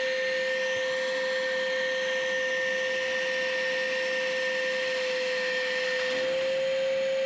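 Vacuum cleaner running with a steady whine and rush of air, its hose sealed onto the end of a buried PVC electrical conduit to suck the pull rope and water through. Its pitch steps up slightly about six seconds in.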